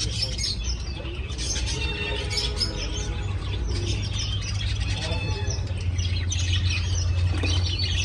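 Many cage birds chirping busily in short high notes, over a steady low hum.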